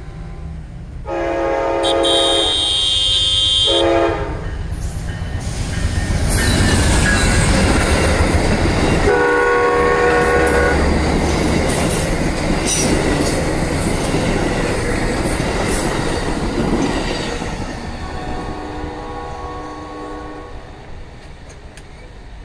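A GE P42 diesel locomotive's air horn sounds for about three seconds as the passenger train nears the crossing. The train then rolls past with loud wheel rumble and clattering over the rail joints, while another horn blast sounds about nine seconds in. The rumble fades as the train draws away, with fainter horn blasts near the end.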